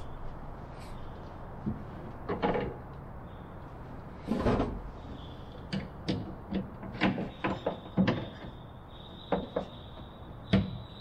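Irregular knocks and clunks of a cordless drill and its flexible shaft extension bumping against the plywood and wooden frame inside a homebuilt aircraft fuselage while bolts are worked through tight holes. A faint high, steady whine comes in past the middle.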